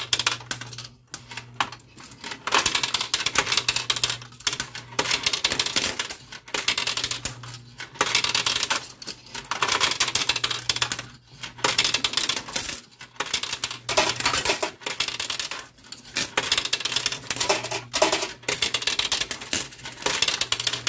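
Quarters clattering in a coin pusher machine: coins clinking onto the metal playfield and against each other in repeated bursts of rapid clicks, over a steady low hum.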